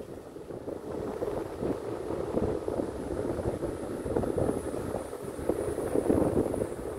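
Motorbike being ridden at steady speed, heard from the rider's seat: an even run of engine and road noise with some wind on the microphone.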